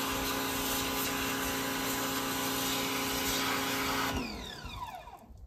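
Pressure washer (water blaster) running steadily, its jet aimed into the lawn soil to dig a post hole. About four seconds in the motor winds down with a falling whine.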